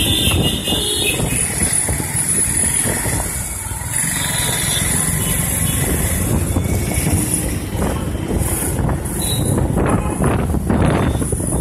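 Busy city road traffic: a continuous rumble of passing cars, motorcycles and trucks.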